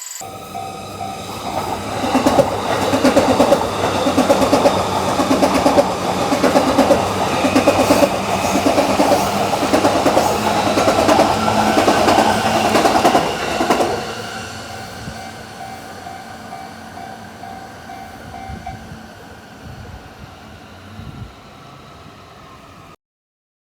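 A train passes over the level crossing, its wheels clattering in a regular beat over the rail joints for about twelve seconds, then fading. The crossing's electronic warning bell rings in a steady repeat throughout and stops about 19 seconds in.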